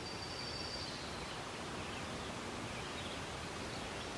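Steady outdoor rural ambience: an even background hiss, with a faint high-pitched call that ends less than a second in.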